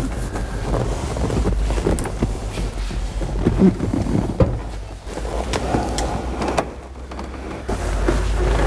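A pickup's front seat being lifted and worked out of the cab: scattered knocks, clicks and scraping as the seat rubs and bumps against the door opening, over a low rumble.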